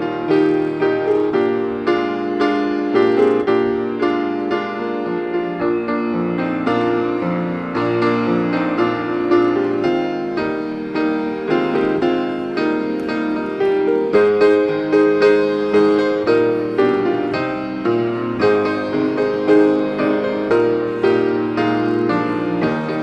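Piano music playing, a steady flow of notes, during the greeting time of a church service.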